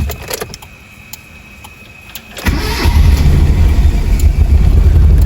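Mitsubishi 4G15 four-cylinder engine starting about two and a half seconds in and then running steadily and loudly at idle. It is misfiring, running on three cylinders because the number 2 cylinder has lost compression (about 25 psi against 150 on number 1), which the mechanic puts down most likely to a leaking valve.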